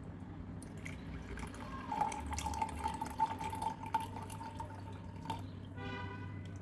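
Liquid trickling and dripping into a container, with small clicks. A thin steady tone comes in about two seconds in and stops a few seconds later.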